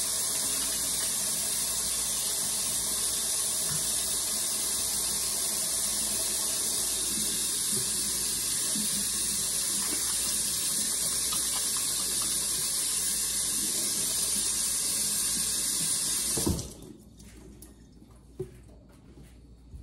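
Kitchen faucet running steadily into a stainless steel sink as greasy hands are rinsed under it, then shut off suddenly near the end, leaving a few faint clicks.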